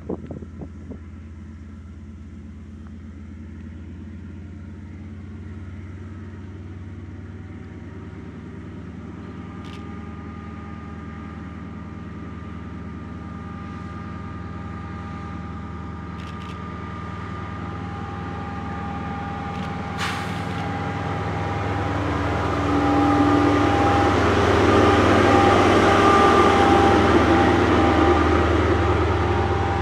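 KiwiRail DL class diesel-electric locomotive approaching at the head of a container freight train: a steady low engine drone with a steady high whine over it, growing louder until it is loudest as the locomotive passes close about 23 seconds in.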